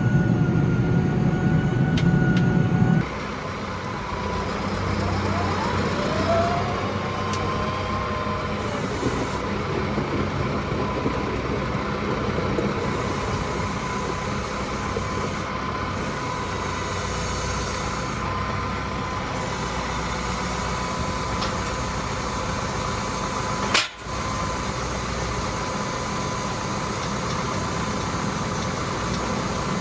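Massey Ferguson 5711 tractor running steadily with a thin, steady whine over the engine. It is louder and deeper for the first three seconds, then settles to a lower, even level, with a momentary dropout about three quarters of the way through.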